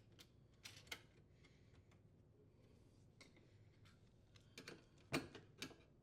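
Faint, scattered small clicks and taps from handling wires and threading the strain relief nut at a dishwasher's electrical junction box. The clearest clicks come about five seconds in.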